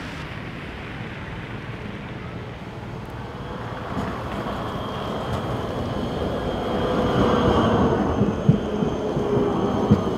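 Škoda 15T ForCity low-floor tram approaching and passing close by, growing louder from about four seconds in, with a faint steady whine from its electric drive over the rumble of wheels on the rails and a few sharp knocks near the end.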